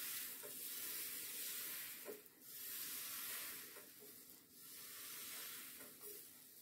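Crêpe batter sizzling faintly on a hot crêpe-maker plate as a T-shaped spreader is swept round over it, a soft scraping hiss that swells and fades about three times.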